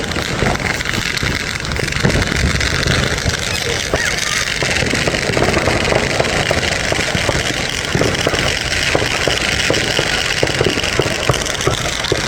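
Steady outdoor street noise with voices in the background.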